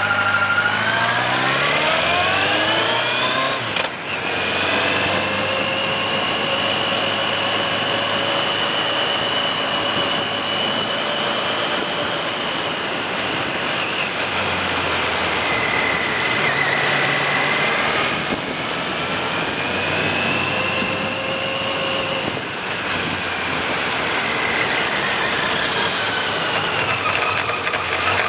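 Suzuki GSX1400's inline-four engine running under way, over steady wind noise. Revs climb for about four seconds, drop sharply at a gear change, then hold fairly level, easing and picking up again through later bends.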